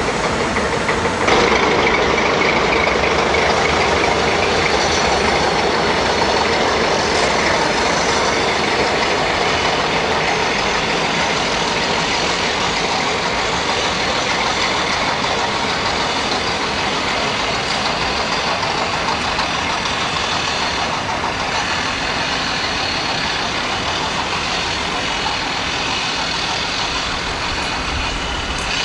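Diesel shunting locomotive's engine running steadily as it hauls a goods wagon, getting suddenly louder about a second in.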